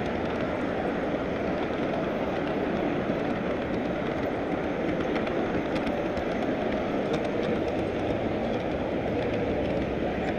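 Model freight train running on its track, heard from a camera riding on one of its cars: a steady rolling rumble of wheels on rail with faint, occasional clicks.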